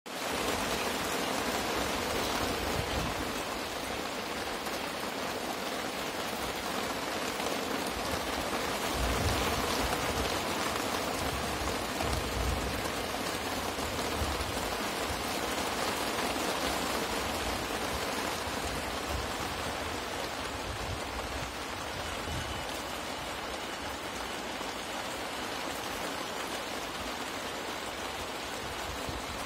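Steady rain falling, an even hiss, with low rumbles of wind on the microphone around ten to thirteen seconds in.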